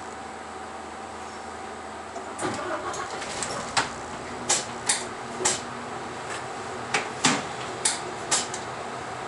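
City bus idling at a stop, heard from inside: a steady engine hum. From about two seconds in it is broken by a string of sharp, irregularly spaced clicks and rattles.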